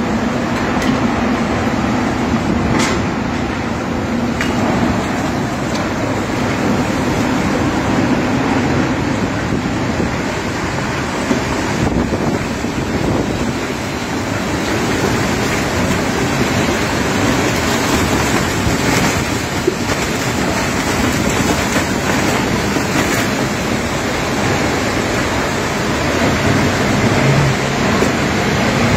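Violent tornado wind blowing across the microphone: a loud, steady rushing noise with a few faint knocks.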